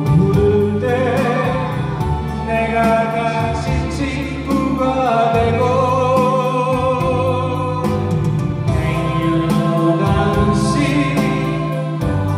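A man singing into a handheld microphone, amplified, over instrumental accompaniment with a steady bass line.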